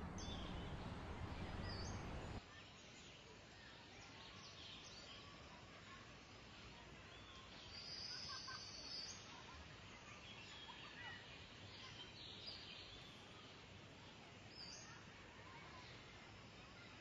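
Faint birdsong: small woodland birds chirping and calling over quiet outdoor ambience. It follows a low rumbling background noise that cuts off abruptly about two seconds in.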